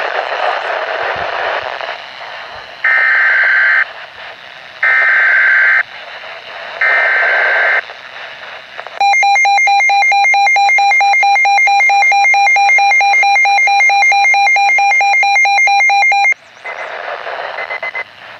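Emergency Alert System signal over weather radio: three one-second bursts of screeching SAME digital header tones about two seconds apart, then a loud, steady attention tone lasting about seven seconds that cuts off suddenly. Radio static sits underneath throughout.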